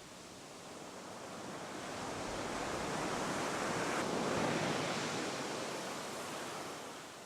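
An ocean wave surging in and washing back: a rushing noise that swells over a few seconds, peaks about four seconds in, then fades away.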